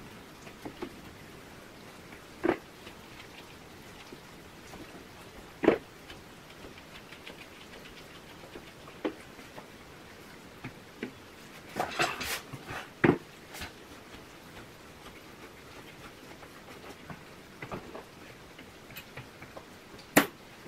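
Grooming sounds: a metal comb and the groomer's hands working through a West Highland White Terrier's coat on a grooming table, as a faint, rapid patter. Several sharp clicks and knocks stand out, with a short cluster of them about halfway through.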